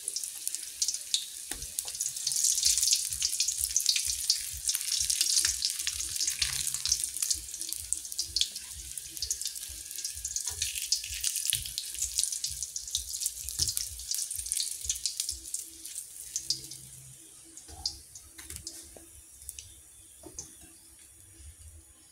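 Hot oil sizzling and crackling with many small pops in a wok as golden-fried salt-and-chili tofu slabs are taken out; the sizzle thins and fades over the last several seconds once the pan holds only oil.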